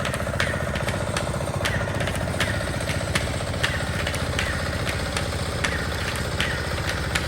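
A small engine running steadily at idle, with sharp ticks coming irregularly about every half second to a second.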